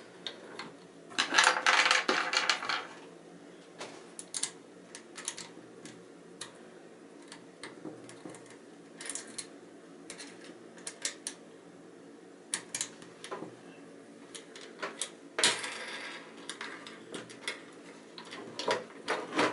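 Clicks, knocks and clatter of a screw clamp and spacer block being handled as a homemade sharpening jig is clamped to a table, with two longer, louder scraping stretches, about a second in and again near fifteen seconds.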